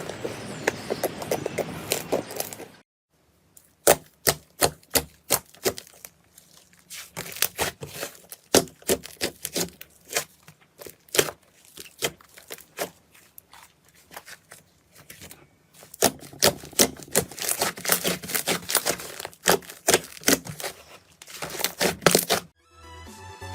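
Slime being handled close to the microphone, making sharp clicks and pops. They come thick at first, then one or two a second, then thick again, with abrupt cuts between clips.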